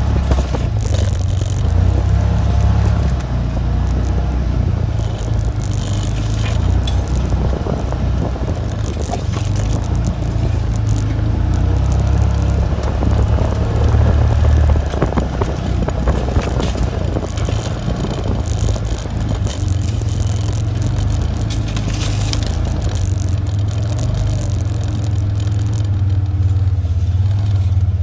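A vehicle engine drones low and steady as it drives, over a constant loose rattling and scraping. The rattling eases off near the end.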